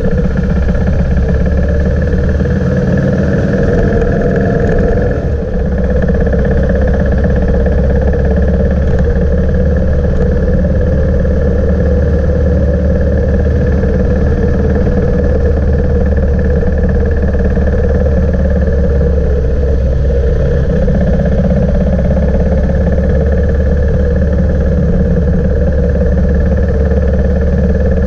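Motorcycle engine running steadily at cruising speed, with a brief dip in level about five seconds in.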